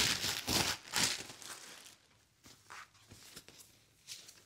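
Packaging being crinkled and rustled by hand as a parcel is unwrapped: a quick run of crackly bursts for about the first second and a half, then only a few faint rustles.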